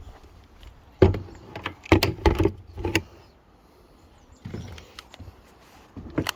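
A series of sharp knocks and clunks from handling: a cluster about one to three seconds in, a few softer ones a little later, and two more near the end.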